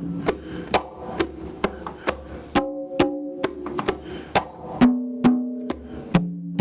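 Congas played by hand in a steady pattern of about two strikes a second, mixing ringing open tones on drums tuned to different pitches with short, sharp slaps.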